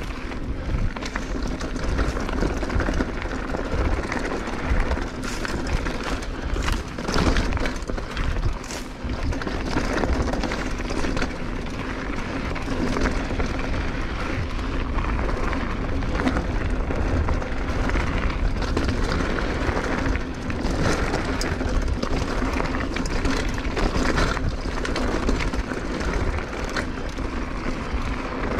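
Mountain bike ridden at speed on a dirt and gravel trail: steady tyre rumble and rushing wind noise, with clattering rattles from the bike as it runs over bumps.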